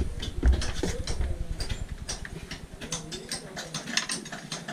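Scattered light clicks and knocks at an irregular pace, with a couple of dull thumps in the first second or so.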